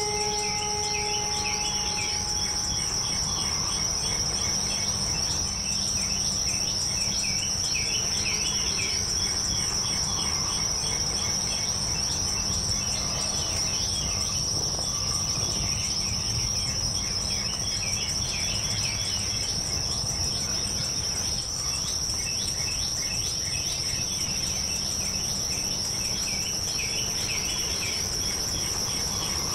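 Crickets and other insects chirping steadily in a dense night chorus, a constant high trill with rapid chirps beneath it, over a low steady rumble. A held low note fades away in the first few seconds.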